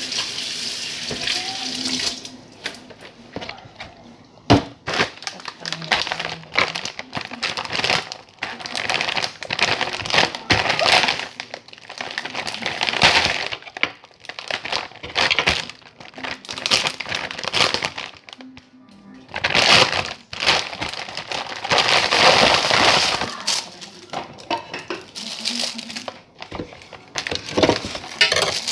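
Plastic packaging of chicken burger patties crinkling and rustling in irregular bursts as the bag is opened and the patties are pulled out, with music underneath.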